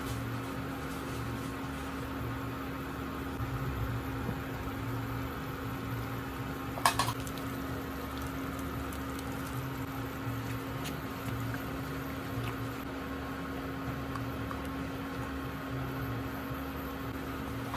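Thick tomato meat sauce bubbling at a simmer in a pan, over a steady electrical hum with a low throb that pulses on and off. A single sharp click comes about seven seconds in.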